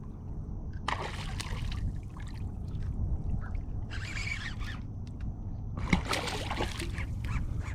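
Water splashing and trickling around a kayak in three short bursts, about 1, 4 and 6 seconds in, over a steady low rumble of wind on the microphone.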